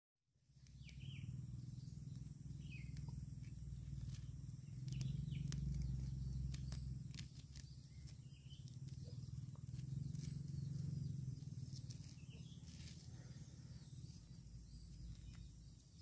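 After a brief silence, a faint outdoor background with an uneven low rumble, a few short bird chirps now and then, and soft rustling and clicks of hands untying a cord from a mesh net bag.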